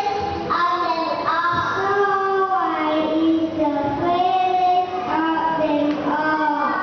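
A child singing a melody, holding notes and gliding from one to the next.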